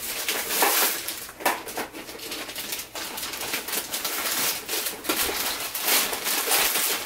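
Wrapping paper rustling and crinkling as a present is handled and unwrapped, an irregular run of crackles.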